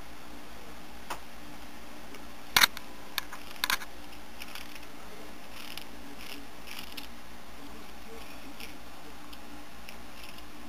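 A kitten biting and crunching a crunchy cheese curl: a few sharp crunches in the first four seconds, the loudest about two and a half seconds in, then softer crackly chewing.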